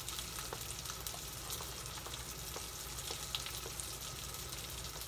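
Salted mackerel frying in a frying pan: a steady sizzle with small pops scattered through it.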